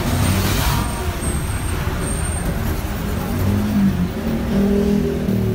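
Street traffic: motorcycle, car and truck engines running close by as a steady low rumble, with pitched engine tones coming up about three and a half seconds in.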